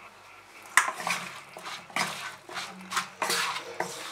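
Wooden spatula stirring and scraping a wet raw mix of small fish, sliced potato and mustard paste in a non-stick kadai that is not yet on the heat: a sharp knock about a second in, then irregular scraping strokes.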